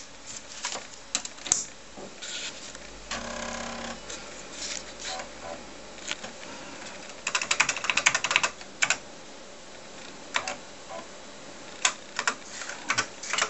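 Keys typed on a TRS-80 Model 4D keyboard: scattered clicks, with a quick run of keystrokes about seven to nine seconds in. About three seconds in there is a short buzz lasting about a second, from the floppy drive working as the machine boots LDOS.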